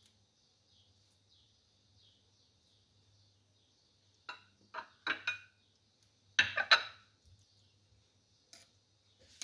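Kitchen utensils and dishes knocking and clinking in a few short bursts, the loudest about two thirds of the way in, over faint, regularly repeated bird chirps.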